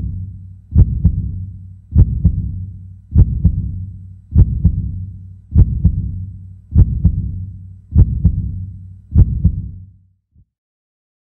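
Heartbeat sound effect: paired low thumps (lub-dub) repeating about every 1.2 seconds over a low hum, fading out near the end.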